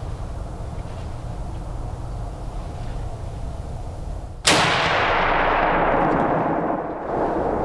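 A single shot from a Remington pump-action .30-06 rifle about four and a half seconds in: a sharp, loud report followed by echo that fades over about two and a half seconds, the high end dying away first.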